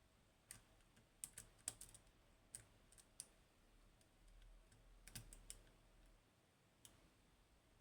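Small irregular metal clicks of a lock pick working the pins of a Goal Z seven-pin Japanese pin tumbler lock, with a cluster of clicks between one and two seconds in and another about five seconds in.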